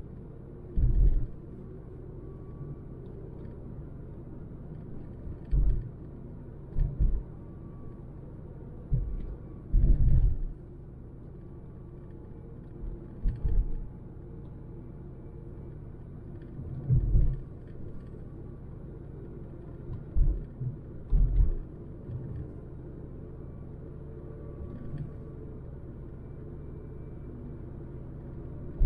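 A 2006 Ford Focus with a 100 bhp petrol engine driving: a steady low rumble of engine and road with a faint steady hum. It is broken every few seconds by short, loud, low thumps, some in pairs.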